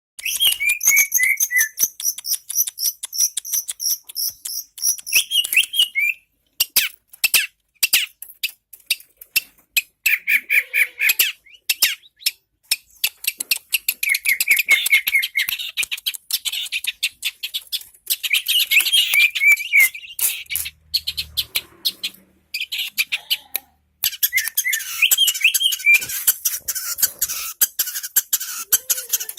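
Long-tailed shrike (cendet) singing a long, fast, varied song of rapid clicking and harsh chattering notes mixed with high trills, broken by a few short pauses.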